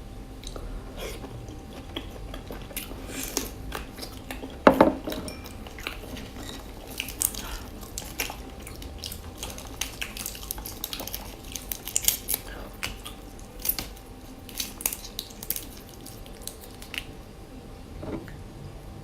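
Small clicks and clatters of dishes and utensils being handled at a meal, with a single loud knock about five seconds in.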